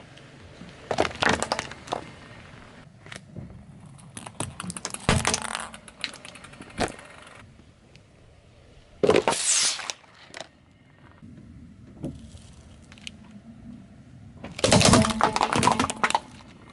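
A car tyre rolling over objects on asphalt and crushing them: a hard plastic case cracking and snapping, and a carton of orange juice being squashed and bursting. The crushing comes in four bouts of sharp cracking and crunching, the loudest near the middle and near the end.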